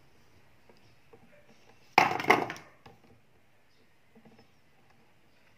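A short clatter of handling about two seconds in, as a pair of metal wire strippers is picked up, followed by a few faint clicks as the jaws are set on the wire.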